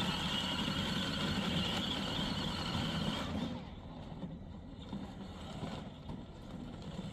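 L8 APEX 24V two-seater kids' ride-on car driving, its electric drive motors and gearboxes running with a steady high whine over a low rumble. About three seconds in the whine stops and the sound drops to a quieter low rumble.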